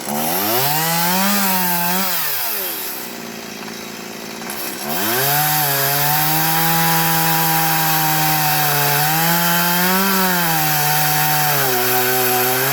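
Two-stroke chainsaw revving up and easing back over the first few seconds, then held at high revs through a long cut in wood for about seven seconds, easing off near the end.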